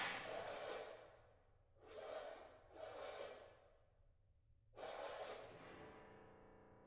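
Soft, breathy swells of air-like noise from a contemporary chamber ensemble playing extended techniques. There are four swells, each with a quick attack fading back into near silence.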